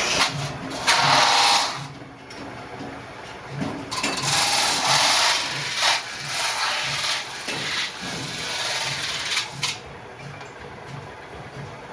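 A workshop machine running with a regular beat of about two strokes a second, broken by longer bursts of harsh hissing noise.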